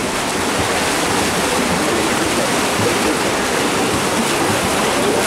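Steady rushing splash of several swimmers racing freestyle, arms and kicks churning the water, with faint voices under it.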